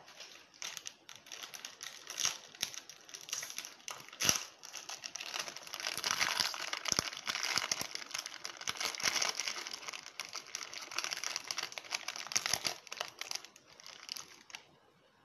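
Plastic biscuit wrapper crinkling and crackling as it is handled and opened by hand, with a single sharp knock a little over four seconds in. The crinkling stops shortly before the end.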